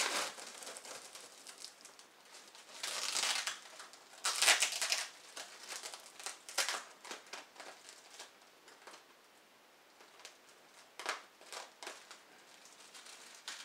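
Clear plastic packing crinkling and rustling as it is pulled out of a cardboard box and handled, in irregular bursts. The loudest come about three and four and a half seconds in, then there is a quieter stretch before a few short crackles near the end.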